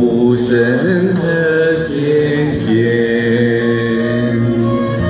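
Amateur choir singing a folk song together in long held notes over a recorded backing track.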